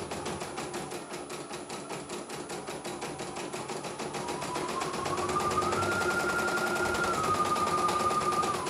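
CNY E900 portable computerized embroidery machine stitching, a rapid even clatter of needle strokes. About four seconds in its motor whine rises in pitch and the machine gets louder, holds, then eases back down just before the end.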